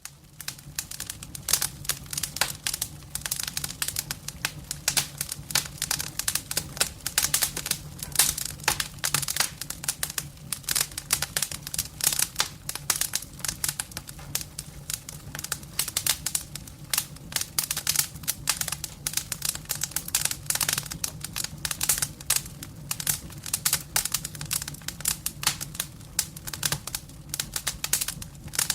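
Wood fire crackling: dense, irregular pops and snaps over a steady low hum.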